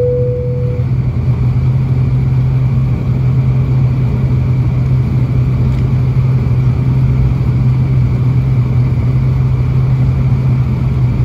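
Steady cabin drone of an ATR 72-600's Pratt & Whitney PW127M turboprop engine and six-blade propeller as the aircraft taxis, heard from a seat beside the engine. A brief single tone sounds right at the start.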